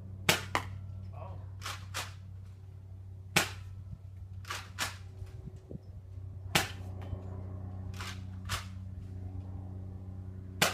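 Nerf Rival blaster firing foam rounds: a series of sharp snaps every second or two, some in close pairs, over a steady low hum.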